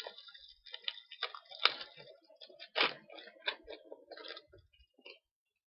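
Trading cards being handled and flicked through by hand: irregular sharp snaps and clicks over a light sliding rustle, stopping shortly before the end.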